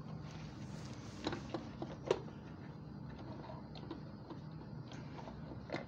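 Light clicks and a few sharper taps of hands handling an infusion pump's plastic housing, over a steady low hum.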